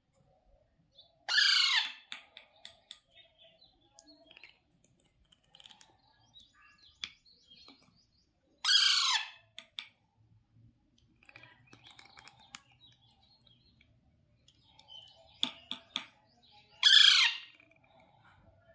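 Baby Alexandrine parakeet calling three times, several seconds apart: each a loud, harsh call of about half a second that falls in pitch, with faint clicks in between.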